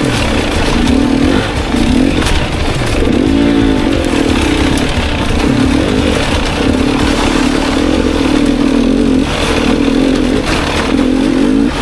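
250cc enduro dirt bike engine running under load on a trail ride, its pitch rising and falling as the throttle is worked on and off.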